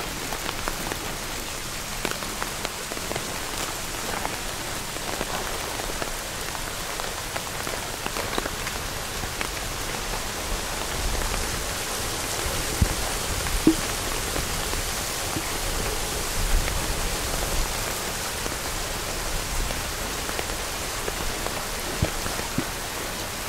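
Rain falling steadily on a silnylon tarp, a dense patter of small drops, with a couple of sharper taps about halfway through.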